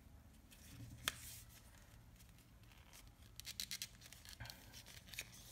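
Faint handling of a soft zippered binocular carrying case as it is unzipped and opened. A single click comes about a second in, then a quick run of light scratchy ticks from the zipper and fabric past the middle.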